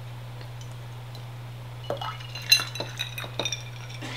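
Dishes and cutlery clinking: a few light clicks starting about halfway through, the loudest a short ringing clink, over a steady low hum.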